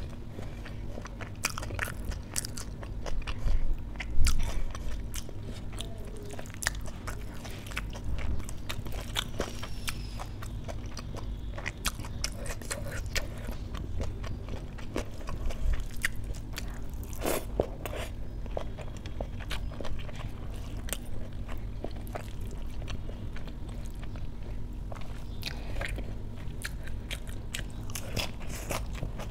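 Crunchy biting and chewing of a dry mix of crisp fried shards and shredded vegetables, eaten by hand, with crisp lettuce bitten near the end. The crunches come as many sharp irregular crackles over a steady low hum.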